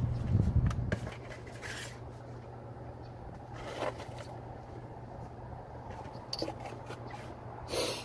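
A low rumble for about the first second, then a few short scrapes and rustles from parts or packaging being handled by hand, spread a couple of seconds apart.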